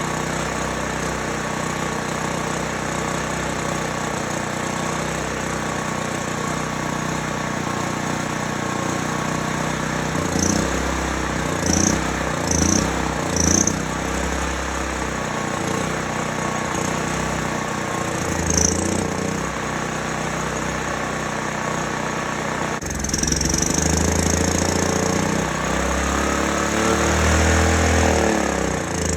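A small petrol generator's engine runs on a newly fitted carburetor and surges, its speed rising and falling in several short bursts about ten to fourteen seconds in and once more a few seconds later. It then runs louder for a stretch, and its pitch falls away near the end. The surging is hunting that the owner traced to an idle mixture screw set too far out.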